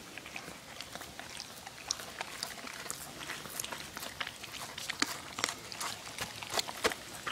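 Dog eating from a plastic bowl: irregular wet clicks and smacks of licking and chewing, several a second.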